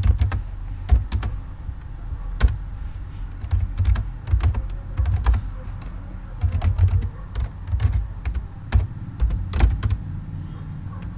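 Typing on a computer keyboard: irregular keystrokes in short runs with brief pauses between them, each a sharp click with a dull low thud under it.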